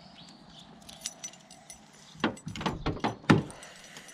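Car keys jingling with light ticks, then a cluster of sharp clicks and knocks, the loudest near the end, as the Honda Civic hatchback's door is unlocked and opened.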